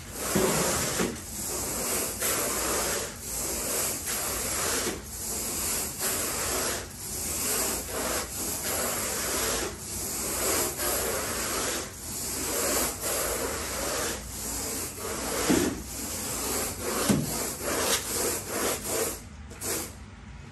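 Carpet grooming rake dragged back and forth across carpet pile in repeated rasping strokes, about one a second.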